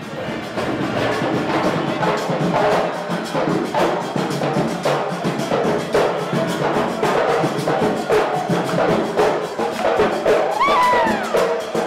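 Lively music with a steady beat of percussion and brass instruments.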